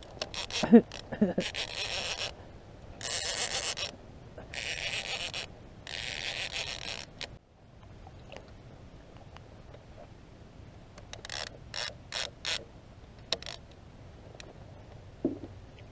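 Baitcasting fishing reel being cranked in four bursts of about a second each while reeling in a hooked striped bass. A few short clicks follow about eleven seconds in.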